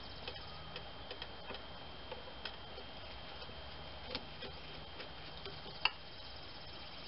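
Faint, scattered clicks and ticks of a screwdriver working the hose clamp on a rubber air intake duct, with one sharper click about six seconds in. A faint steady high whine runs underneath.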